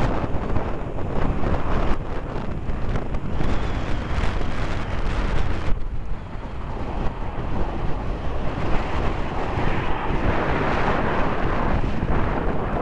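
Wind buffeting the microphone over the engine noise of the Red Arrows' BAE Hawk jets passing in formation. The jet noise dips about halfway through, then swells again.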